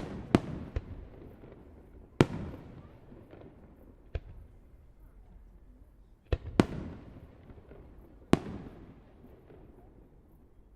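Fireworks display: shells bursting in an irregular string of about eight sharp bangs, some in quick pairs. Each bang is followed by a rolling echo that fades.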